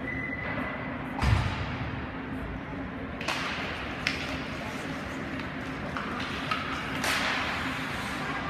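Ice hockey rink ambience: spectators talking over a steady arena hum, with a few sharp knocks of sticks and puck on the ice. The loudest knock, with a thud, comes about a second in, and a longer scraping burst comes near the end.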